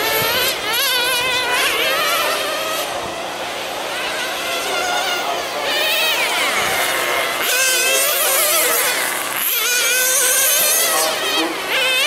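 Several nitro RC sedans racing, their small two-stroke glow engines buzzing at a high pitch. Several engines sound at once, each rising and falling in pitch as the cars speed up and slow down.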